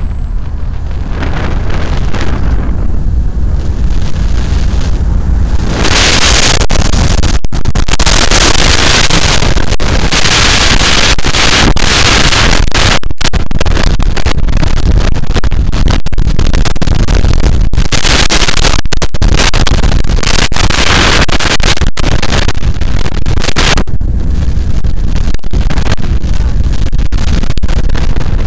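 Heavy wind rushing on the microphone of a camera riding on a moving Yamaha RayZR scooter, with the scooter's small single-cylinder engine running steadily underneath. The wind noise grows louder about six seconds in and eases a little near the end.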